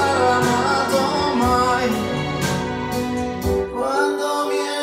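An Italian pop ballad playing back through Dali Epicon 2 loudspeakers and heard in the room: a wavering melody over sustained chords. The bass drops out about four seconds in.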